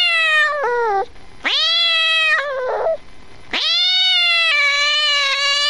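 Domestic cat meowing: three drawn-out meows, the last one the longest, about three seconds.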